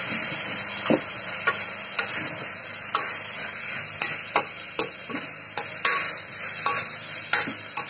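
Metal spoon stirring sautéing onions and tomato in a pressure cooker pot, clinking and scraping against the pot irregularly, about once or twice a second, over a steady sizzle of the frying vegetables.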